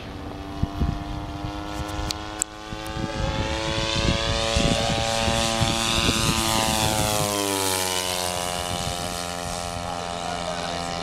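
Engine and propeller of a radio-controlled ESM T-28 Trojan model plane making a low fly-past. The engine note grows louder as the plane approaches, then drops in pitch as it goes by, about seven seconds in.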